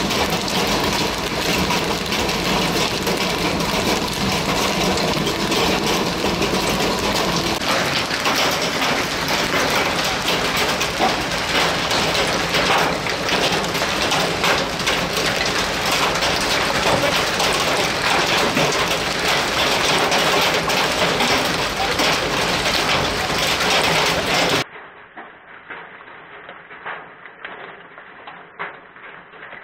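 Hail and heavy rain pounding down on the gas-station canopy and cars: a loud, dense roar packed with sharp hits. Near the end it cuts abruptly to a much quieter, muffled sound with scattered faint taps.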